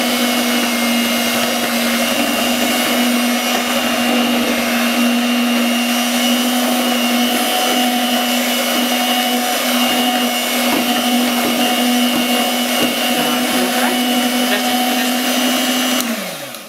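Electric hand mixer running at a steady speed, its beaters whisking a liquid ice-cream mixture in a plastic bowl. Near the end it is switched off and the motor winds down to a stop.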